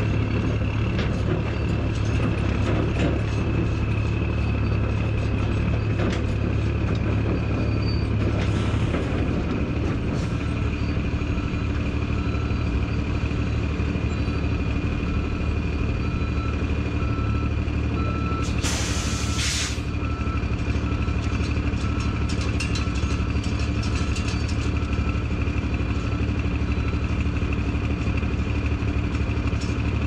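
Heavy diesel truck engine running steadily with a low hum. A faint repeated beeping, like a backup alarm, sounds from about 8 to 26 seconds in, and a short hiss of air about 19 seconds in.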